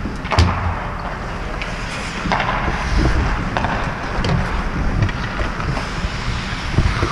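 Ice hockey play in an indoor rink: a steady rink rumble with several sharp clacks of sticks and puck, the loudest about half a second in.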